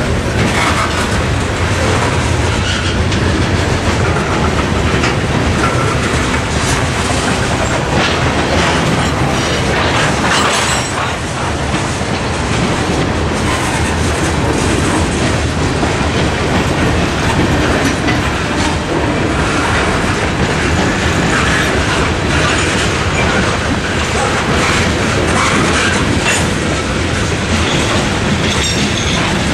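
Freight train's covered hopper and tank cars rolling past over a road crossing, a steady rumble and clatter of steel wheels on the rails.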